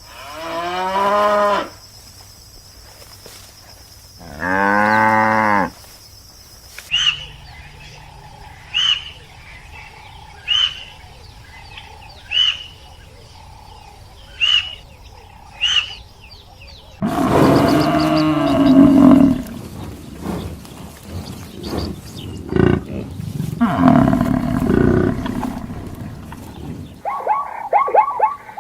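Cow mooing twice in long, falling calls, then a string of short high chirps about every two seconds. Next a large animal roars loudly for several seconds, and near the end a dog starts barking.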